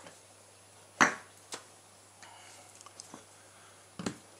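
House bricks being set down by hand on the floor: a sharp knock about a second in, then a few lighter knocks, with another knock near the end.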